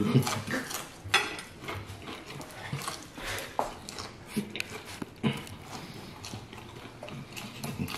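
A man chewing and biting strips of bacon, eating fast with his hands, with irregular clicks and mouth noises throughout.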